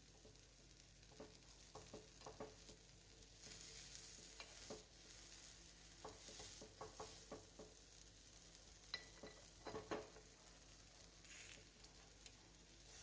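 Paniyaram sizzling faintly in oil and ghee in a non-stick paniyaram pan, with scattered light clicks of a spoon against the pan as the paniyaram are turned over one by one.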